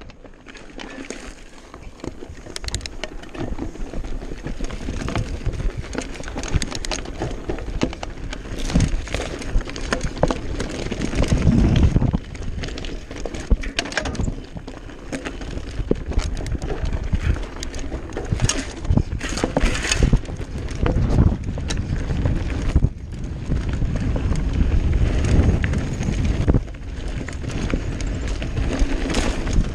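Commencal Meta AM V4 mountain bike ridden over loose, stony dirt trail: continuous tyre rumble and crunch on gravel, with frequent clicks and knocks from the bike rattling over rocks.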